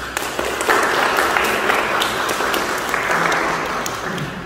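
Audience applauding, many hands clapping, swelling about a second in and fading toward the end.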